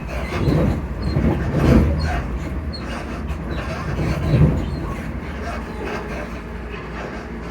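Class 334 electric multiple unit running, heard from inside the carriage: a steady low rumble with a low hum from the traction motors and running gear. Three louder, short low bursts come about half a second, just under two seconds, and about four and a half seconds in.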